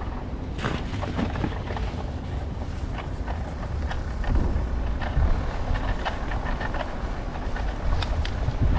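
Wind buffeting the microphone of a camera riding on a moving bicycle, a steady low rumble, with irregular clicks and rattles from the bike throughout.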